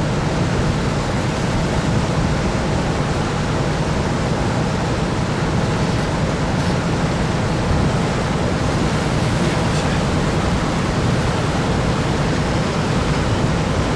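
Steady rushing noise of a boat under way on open water: wind on the microphone and water along the hull over a low engine drone.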